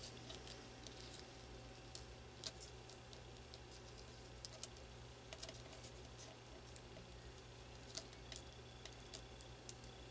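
Faint, scattered light taps and rustles of paper card pieces being slid about and set down by hand on a cutting mat, over a low steady hum.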